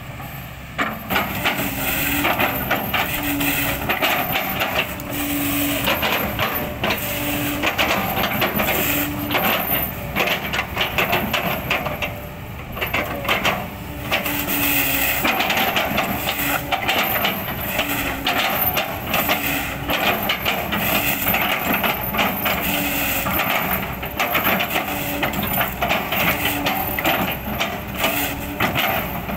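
Excavator bucket chopping an old oil palm trunk into chips: dense crackling and crunching of fibrous wood over the running engine, easing briefly about twelve seconds in.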